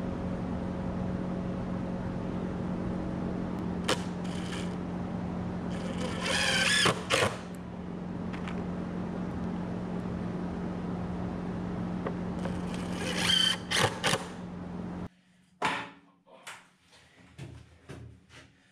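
Cordless drill driving screws into plywood shelf brackets, two short bursts of motor whine about 6 and 12 seconds in, over a steady mechanical hum. After a sudden drop in level, a few light knocks and taps.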